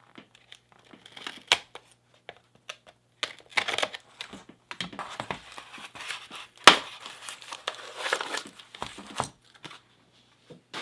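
Packaging being crinkled and torn open by hand in irregular spurts, with a sharp click about two-thirds of the way through.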